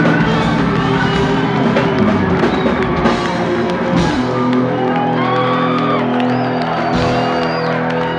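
Live funk band playing: electric guitar, electric bass, drum kit and organ, with whoops from the audience. About halfway through, the deepest bass thins out and steady held chords carry on.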